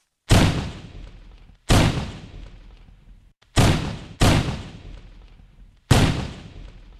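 Recorded firecracker explosion sound effects played one after another: five sharp bangs, each trailing off in a rumble over about a second. Several of the tails are cut off short.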